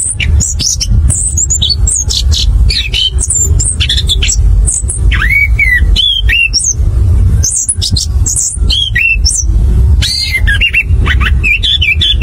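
Chestnut-capped thrush (anis kembang) singing a fast, unbroken run of varied high whistles, chirps and slurred glides, the rolling 'ngerol' song. A steady low rumble runs underneath.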